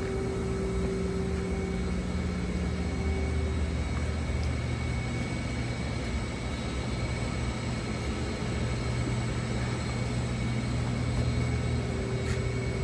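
Steady low mechanical drone with a few held low tones that shift slightly in pitch partway through.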